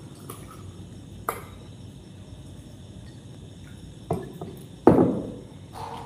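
A few light knocks on a tabletop, the loudest about five seconds in with a short ringing tail: a drinking glass being set down on the table.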